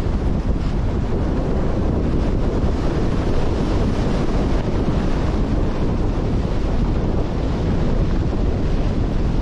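Strong wind buffeting the microphone in a steady low rumble, over the rush of a rough, stormy sea's waves.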